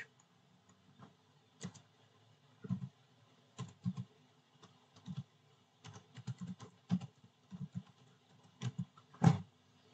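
Typing on a laptop keyboard: irregular key presses with gaps between them, and one louder key press near the end.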